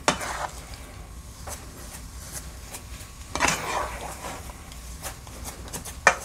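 Plastic rice-cooker paddle stirring and folding a thick, sticky rice and coconut-milk mixture in a metal pot: soft scrapes and squelches with a few sharp clicks against the pot. The loudest scrape comes about three and a half seconds in, and another just before the end.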